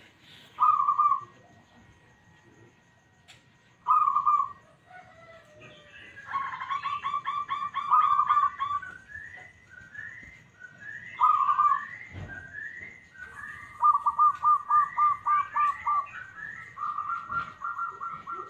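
Zebra doves (perkutut) cooing: a few single loud coos and several runs of rapid staccato notes, with softer, higher chirps between them.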